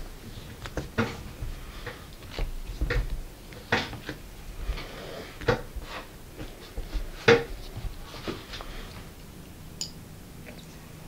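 Hands rolling and pressing a small white ball on a wooden tabletop: irregular knocks and rubbing, with a few louder bumps, going quieter near the end.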